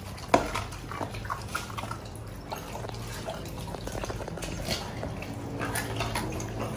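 Dogs eating raw chicken from stainless-steel bowls: wet chewing, crunching and smacking in quick irregular clicks, with a sharp knock of a steel bowl on the tile floor about half a second in.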